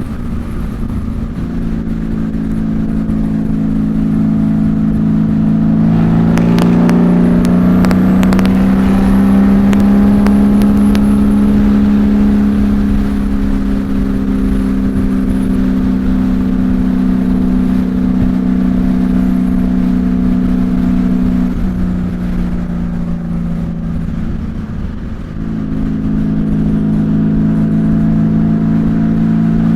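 Honda Valkyrie's 1520 cc flat-six running through Cobra six-into-six straight pipes while riding, heard from inside the rider's helmet. The steady exhaust drone rises in pitch about six seconds in as the bike pulls, holds at cruise, eases off for a few seconds past the twenty-second mark, then picks up again near the end.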